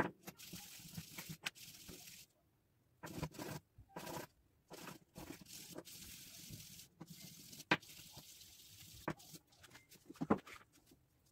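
Small resin piece being rubbed by hand on wet sandpaper: a scratchy hiss in runs of strokes, broken by short pauses and a few sharp knocks, and dying away near the end.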